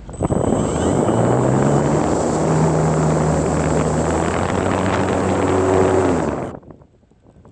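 RC model plane's motor and propeller running at throttle, heard up close. Its pitch rises over the first second or two and then holds steady. It cuts off suddenly about six seconds in.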